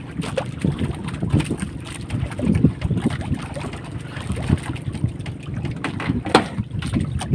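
Wind buffeting the microphone and water slapping against a small fishing boat's hull at sea, with scattered knocks and clicks; the sharpest click comes about six seconds in.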